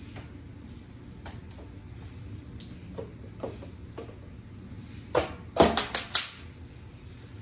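A window screen is handled with a few light clicks, then drops out of its window frame and clatters onto the ground in a quick cluster of loud rattling knocks about five seconds in.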